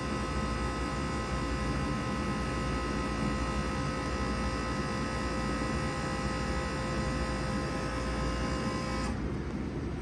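Bard 3-ton wall-hung heat pump running with a steady hum of several held tones over a rushing noise and a low rumble. About nine seconds in, the tones and the hiss cut off abruptly, leaving only the low rumble.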